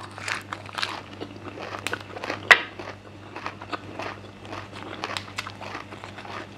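Close-miked chewing and crunching of a leaf-wrapped mouthful of red ant miang, a run of small wet clicks and crackles with one sharper crunch a couple of seconds in. Fresh leaves crinkle as they are folded around the next bite.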